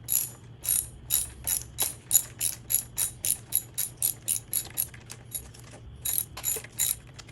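Socket ratchet clicking in quick, even strokes, about three clicks a second, as the loosened fork cap is spun out of the motorcycle's front fork tube. The clicks pause briefly about five seconds in, then resume.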